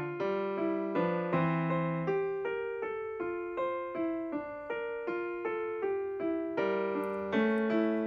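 Background music: a piano playing a gentle melody, a steady run of notes about three a second.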